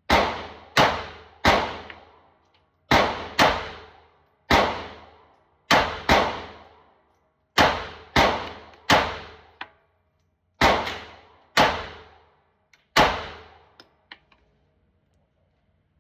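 Pistol shots echoing in an indoor range: about fourteen shots fired in uneven pairs and singles, each ringing off the walls, then a few faint clicks near the end.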